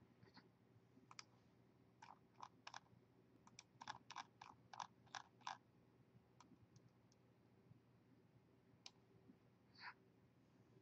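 Faint scattered clicks and taps at a desk, a quick run of about a dozen a couple of seconds in, over a faint steady low hum.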